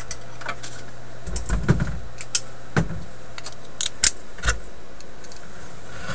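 Small irregular metallic clicks and taps, with a few duller knocks, from hands and a tool working in a metal tube-amplifier chassis, over a steady low hum.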